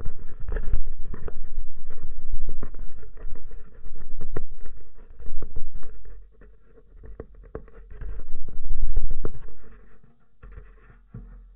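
Hands handling and fitting an action camera on its mount, picked up through the camera's own housing: a run of clicks, knocks and rubbing with a low rumble, easing off about six seconds in, with another loud stretch of bumps around nine seconds.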